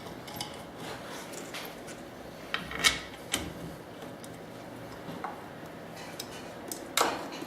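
Light metallic clinks and rubbing of hand-handled metal tool parts, as when a head is changed on a CNC router carriage, with sharper clicks about three seconds in and near the end.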